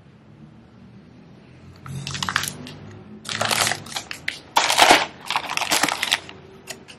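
Plastic grocery packaging and paper bags crinkling as they are handled, in several loud bursts over about four seconds, then a couple of short clicks near the end.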